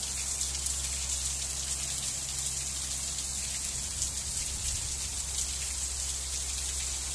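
Heavy rain pouring steadily onto the road and pavement, with water running and dripping off the eave of a porch roof.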